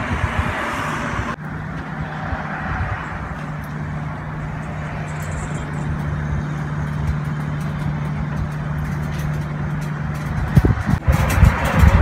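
An engine running steadily with a constant low hum over a haze of outdoor mechanical noise. The sound changes abruptly about a second and a half in and again near the end.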